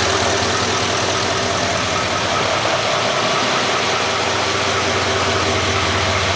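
L5P Duramax 6.6-litre V8 turbodiesel idling steadily, an even low running rhythm with no change in speed.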